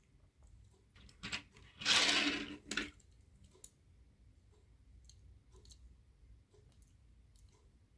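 Handling noises from a Hot Wheels die-cast toy truck and its packaging: a few small clicks and taps, with one louder, brief rustling scrape about two seconds in, then faint scattered ticks.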